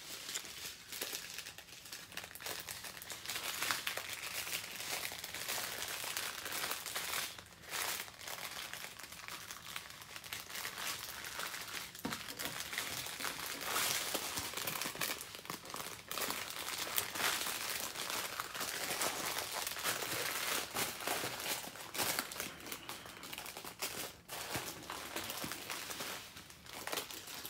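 Thin plastic drill packets crinkling and crackling steadily as they are handled and folded up by hand.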